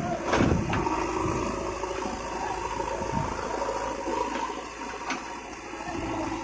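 Diesel engine of heavy machinery running steadily, with a clank about half a second in and another knock near five seconds.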